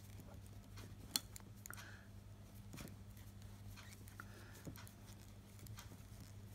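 Knitting needles clicking and tapping faintly and irregularly as stitches are worked, with one sharper click about a second in. A steady low hum runs underneath.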